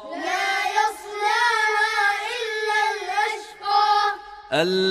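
A child's voice chanting a Quran verse in melodic recitation, drawn-out and wavering in pitch, with a short second phrase and a brief pause. A lower adult man's voice begins the next verse near the end.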